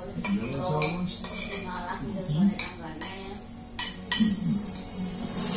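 Spoons and forks clinking against plates and bowls while people eat, with several sharp clinks, the loudest about four seconds in.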